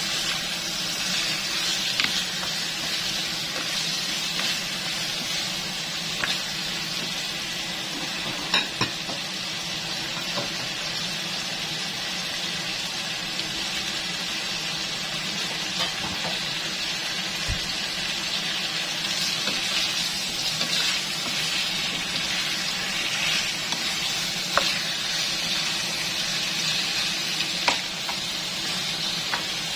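Raw chicken drumsticks sizzling steadily in hot oil with garlic and onion as they brown in a pan, with a few sharp clicks and scrapes from a spatula turning them against the pan.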